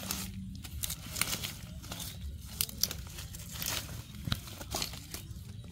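Dry plant debris being rummaged through and pulled apart by hand: irregular crackling, crinkling and tearing.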